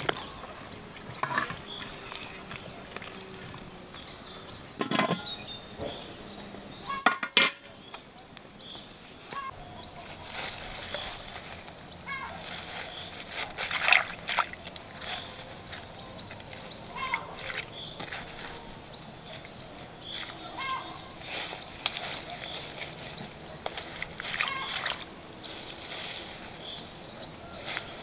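A small bird chirping over and over in quick runs of short high notes, with water splashing and sloshing as fresh herbs are swished by hand in a tub of water. One sharp knock about seven seconds in.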